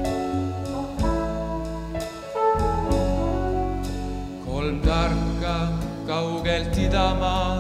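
Trumpet playing a slow solo melody over keyboard and bass accompaniment. Its notes are held with vibrato from about halfway in.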